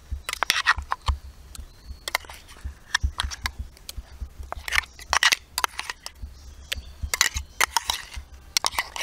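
A steel spoon scraping and tapping against a steel bowl while scooping out thick ginger-garlic paste, in irregular short scrapes and knocks.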